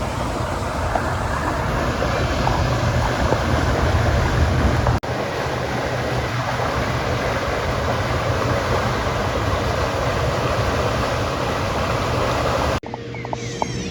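Steady wind rumble on the microphone mixed with water noise from the kayak on the lake. Near the end the sound cuts suddenly to quieter birdsong.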